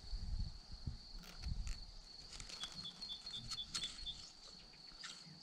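A steady, thin, high-pitched insect trill, with a short run of about six quick high pips a little past halfway, over low rustling and knocks of the camera being moved among the leaves.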